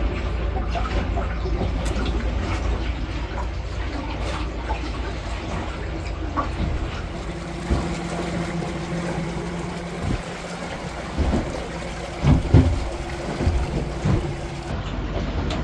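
Water splashing and trickling around a small boat over a steady low rumble. A steady hum comes in about halfway, and a few knocks sound near the end.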